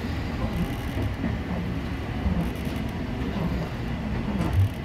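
Ohmi Railway electric train running along the line, heard from inside the car: a steady low rumble, with a single louder knock near the end.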